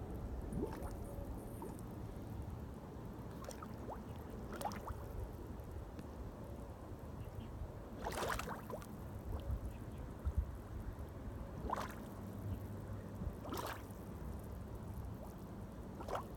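Gas bubbling up and bursting through the liquid mud of an active mud volcano vent: a short gurgling plop every few seconds, the longest about eight seconds in, over a steady low background noise.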